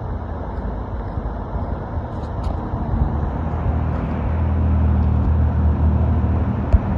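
Road traffic, with a passing vehicle's low engine rumble getting louder from about halfway through.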